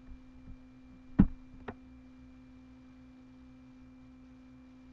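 A steady faint electrical hum in the recording, a low tone with a few higher lines, and two sharp clicks about a second in, half a second apart.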